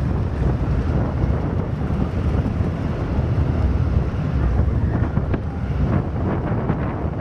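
Wind buffeting the microphone of a moving velomobile, a steady low rumble, with a few faint clicks or rattles near the end.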